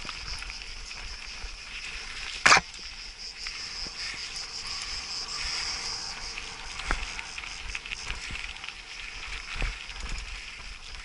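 Insects chirring in a steady high band over the crunch and rattle of a mountain bike rolling along a gravel dirt trail. A loud sharp clack about two and a half seconds in, with smaller knocks near the end, as the bike jolts over rough ground.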